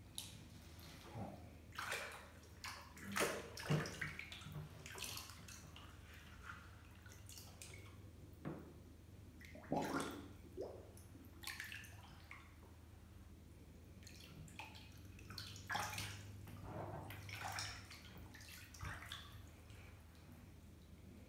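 Bathwater sloshing and splashing in irregular bursts as a person lying in a filled tub moves their arms and body through the water, over a steady low hum.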